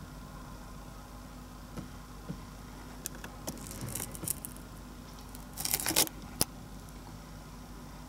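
Handling noise of a camera being pushed around a cramped underfloor crawlspace: scattered clicks and short scraping rustles, the loudest cluster about six seconds in, over a steady low hum.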